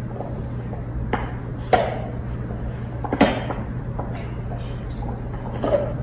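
Four sharp clinks and knocks spaced a second or more apart, over a steady low hum.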